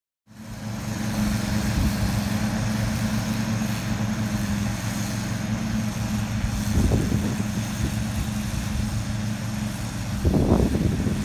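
Ride-on lawn mower's engine running steadily while mowing grass, with brief louder low rumbles about seven and ten seconds in.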